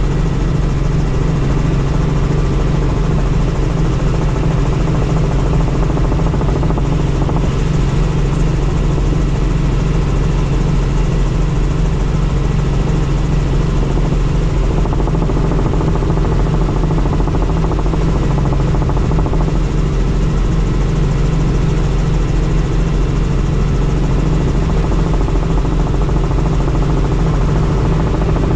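Helicopter in flight: steady engine and rotor noise that does not change.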